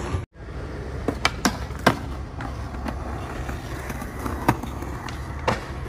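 Skateboard wheels rolling on smooth concrete with a steady low rumble, broken by several sharp clacks as the board slaps down onto the ground during flatground tricks.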